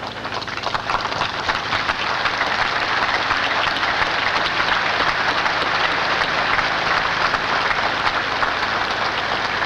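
A large crowd applauding. The clapping starts right after a spoken sentence ends, swells over the first couple of seconds and then holds steady.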